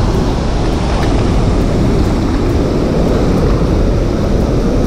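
Steady, loud rush of water pouring out of a concrete dam spillway into the river.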